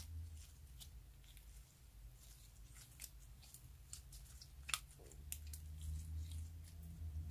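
Clear slime packed with star-shaped sequins being squeezed and stretched by hand, giving faint sticky crackles and small pops, with one sharper pop about two-thirds of the way through, over a low hum.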